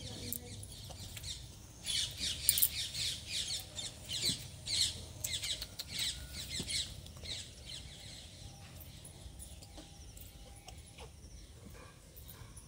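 A rapid string of high-pitched animal calls, each a quick falling chirp, about five a second, from about two seconds in until about seven seconds in.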